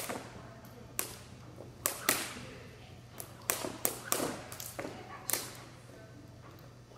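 Jump rope slapping the floor and sneakers landing during a freestyle routine: sharp smacks in an uneven pattern, a dozen or so, some close together in quick runs.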